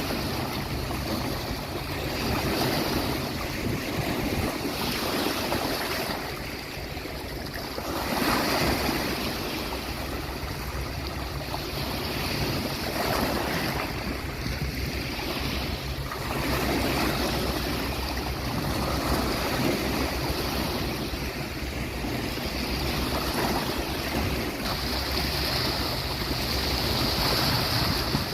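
Sea waves breaking and washing up on a beach, the surf swelling and easing every few seconds over a steady low rumble.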